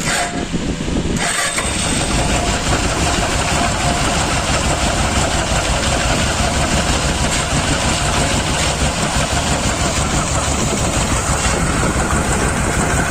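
Motorcycle engine running with its right-hand side cover off, with a steady grinding hum from inside: a worn, slack timing chain rubbing against its tensioner lever.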